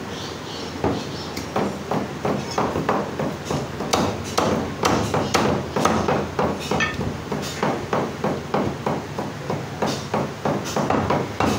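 Meat cleaver chopping mutton into small pieces on a thick wooden log chopping block: a fast, steady run of thuds, about three strokes a second, starting about a second in.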